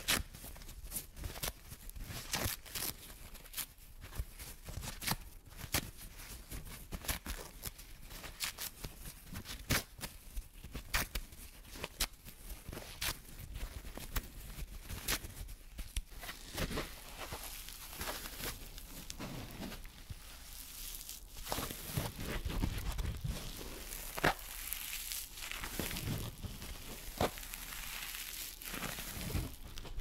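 Close-miked ASMR trigger sounds: something small is torn and crinkled between the fingers right at the microphone, giving a dense run of fine crackles and sharp clicks. The crackling grows denser in the last third.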